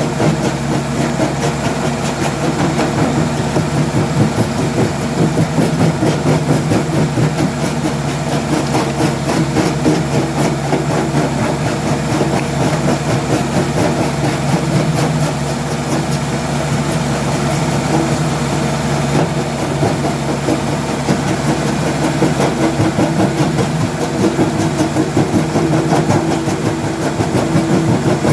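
Diesel engine of a Case 770EX Magnum backhoe loader running steadily, with a fast, uneven throb.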